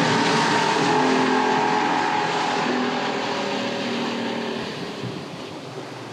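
Yamaha outboard motor running a small center-console boat at speed, with wind and rushing water along the hull. The engine's tone fades after about three seconds, leaving mostly the hiss of wind and water.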